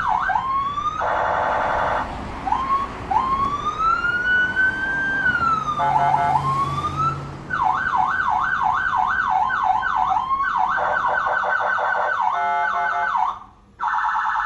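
Fire engine's electronic siren switching between modes: a slow rising-and-falling wail, then a fast up-and-down yelp about twice a second, then a faster warble. Short buzzing horn blasts come about a second in and near the end.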